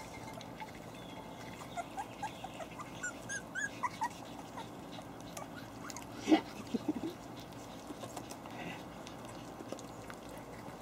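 Havanese puppies whimpering in a run of short, high squeaks, then one louder, sharp yelp about six seconds in, followed by a few short cries.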